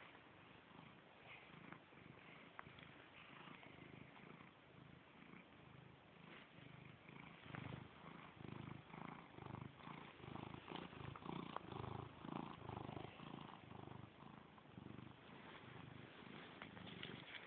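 Cat purring close to the microphone: a low, rhythmic rumble, pulsing with each breath at about two to three pulses a second, getting louder about halfway through.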